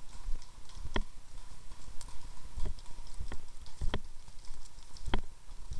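Walking footsteps on a dry forest floor of needles and twigs, a steady pace of about one step every 0.6 seconds, over a low rumble of wind and handling on the microphone.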